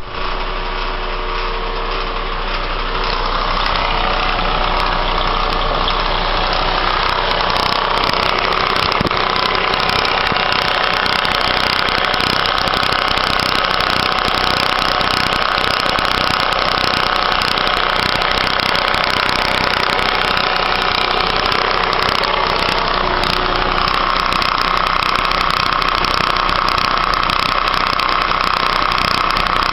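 Mazda 6 engine running steadily with an abnormal noise in it. A steady high tone within the sound grows stronger about a quarter of the way in and again near the end.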